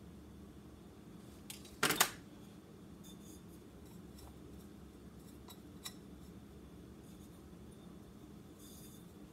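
Faint handling sounds at a craft table: about two seconds in, a sharp double clack as a hot glue gun is set down on the tabletop, then a few light clicks and taps as small terracotta pots and fabric are handled, over a low steady hum.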